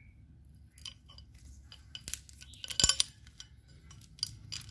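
A Super chain wrench with a 42 cm steel chain being handled: a run of light metal clicks and clinks, with the loudest cluster about three seconds in.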